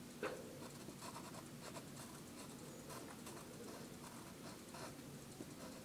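Pencil drawing on paper: faint, short scratching strokes, one after another.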